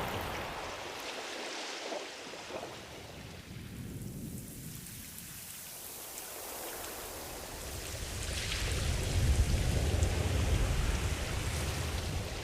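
Ocean waves washing in: a wash that fades away, then a bigger wave builds and breaks about eight seconds in with a deep rumble, easing off near the end.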